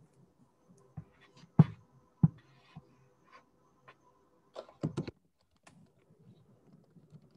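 A handful of scattered clicks and light knocks coming through a video-call microphone, the loudest about one and a half and two and a quarter seconds in and a short cluster around five seconds, over a faint steady hum.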